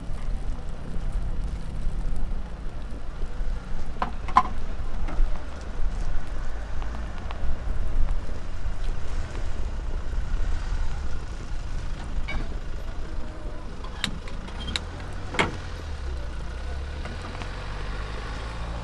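Low, steady rumble of street traffic, with a few sharp clicks and knocks scattered through it.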